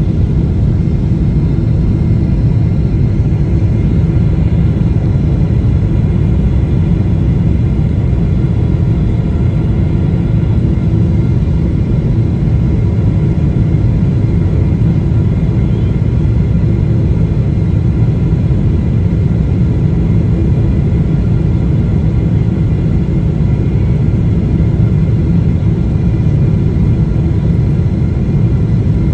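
Steady cabin rumble of a jet airliner's engines and rushing air, heard inside the cabin beside the wing during the approach to landing, with faint steady whining tones above the rumble.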